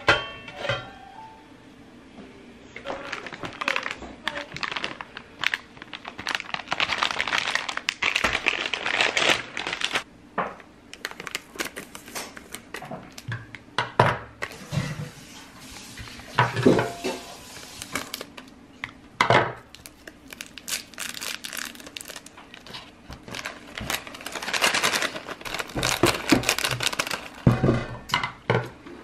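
Plastic food packaging of a Little Sheep hot pot soup base crinkling and rustling as the packets are unwrapped and handled, with a few sharp knocks of things being set down. Background music plays underneath.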